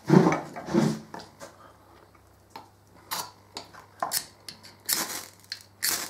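A couple of knocks as a knife is picked up off a wooden bench, then the sharp squared spine of a D2-steel fixed-blade knife scraped down a ferro rod in a string of short, harsh rasping strikes, about one a second, throwing sparks.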